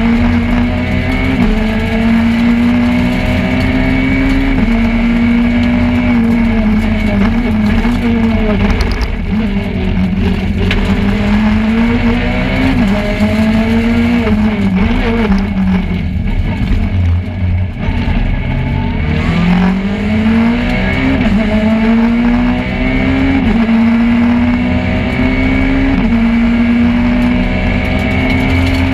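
Peugeot 208 R2 rally car's engine heard from inside the cockpit, driven hard at speed with the revs repeatedly climbing and dropping back through gear changes. A little past halfway the revs fall low for a slow corner, then climb steadily as it accelerates away.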